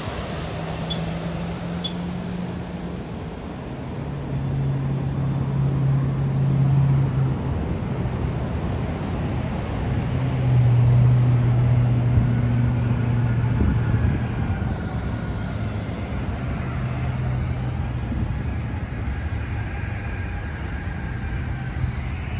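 Street traffic, with the steady hum of vehicle engines. In the first seconds the jet noise of a landing Airbus A330-200 dies away. About two-thirds of the way through there is one sharp knock.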